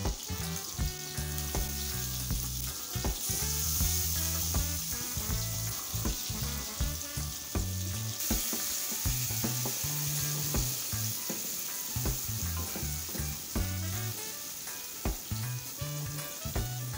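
Prawns and fresh diced tomato sizzling in hot oil in a nonstick frying pan, with short clicks of stirring. The sizzle grows louder from about three seconds in and eases again after about eight seconds, as the tomato goes in.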